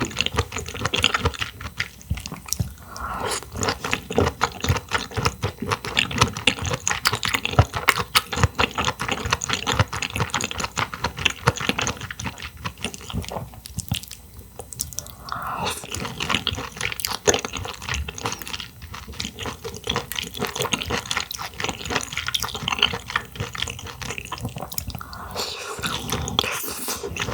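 Close-miked eating of clams: wet chewing, smacking and slurping mouth sounds with many quick clicks.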